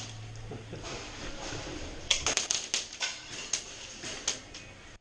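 Airsoft guns firing: a quick burst of sharp snapping shots about two seconds in, followed by a few single shots.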